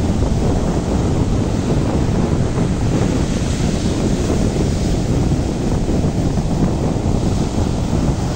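Sea surf breaking and washing on a beach under a heavy rumble of wind buffeting the microphone; the hiss of the surf swells about three seconds in.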